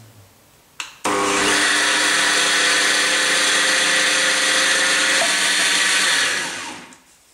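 Countertop blender switched on about a second in and running steadily, blending a liquid mix of cream and condensed milk, then dying away near the end.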